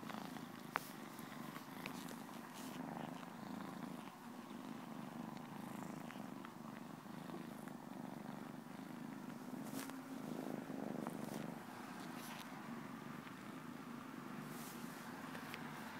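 Tabby cat purring steadily while it suckles at its own belly, with scattered small clicks and one sharper click about a second in.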